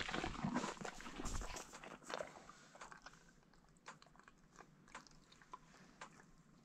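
Horses' lips and muzzles mouthing and nibbling at the camera, rustling and clicking against it. Louder in the first two seconds, then fading to faint scattered clicks.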